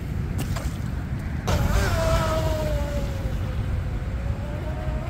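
Small electric RC mono-hull boat with a 2600 kV brushless motor taking off at full throttle. About one and a half seconds in comes a sudden rush of spray and prop noise, then a steady motor whine that sags slightly in pitch as the boat runs away. Wind rumbles on the microphone throughout.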